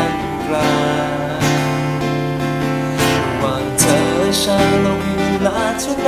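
Acoustic guitar playing an instrumental passage, with chords strummed about every second or so and left to ring between strokes.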